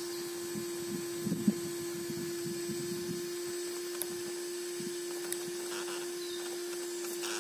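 Electric drive motor of an RC rock crawler whining at a steady, unchanging pitch. In the first three seconds low knocks and crunches come from the crawler working over rock.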